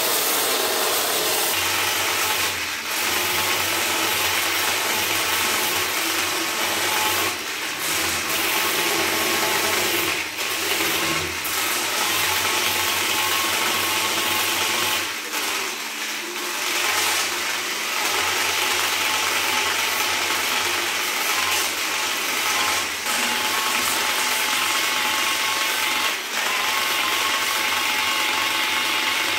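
Corded power tools sanding walnut veneer and black epoxy resin with abrasive discs: first a drill with a sanding pad, then an angle grinder with a sanding disc. The motor whines steadily under the rasp of the abrasive, easing off briefly several times.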